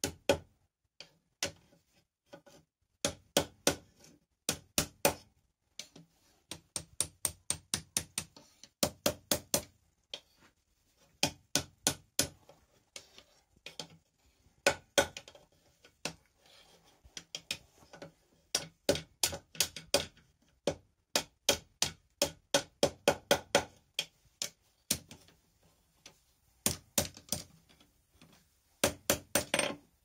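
Hand hammer striking a red-hot steel bar on the horn of an anvil, bending it round into a ring: runs of quick blows, about three a second, with short pauses between runs, each blow ringing briefly.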